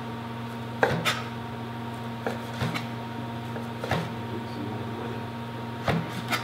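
Chef's knife slicing slab bacon into lardons, the blade knocking on the cutting board at irregular strokes about once a second, some seven times. A steady low hum runs underneath.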